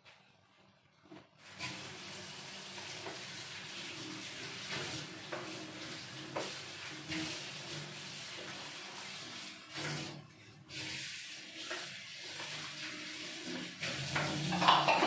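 Water running from a kitchen tap into a sink: a steady rush that starts suddenly after about a second and a half and breaks off briefly around ten seconds in. Near the end there is some louder clattering at the sink.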